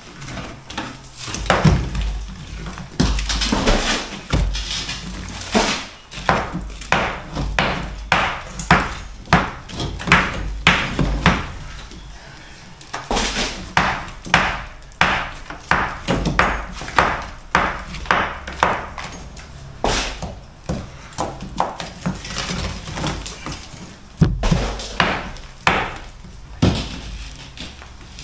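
Hand tools striking old brickwork and rubble as it is chopped out by hand. Sharp strikes come in short runs, often about two a second, with brief pauses between runs.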